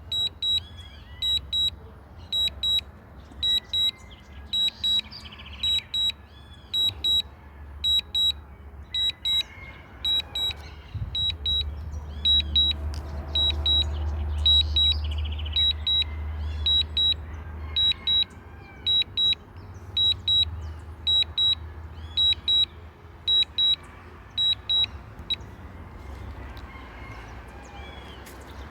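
DJI drone flight app's warning alert: high double beeps repeating about twice a second, stopping near the end. Birds chirp and a low rumble swells and fades in the middle.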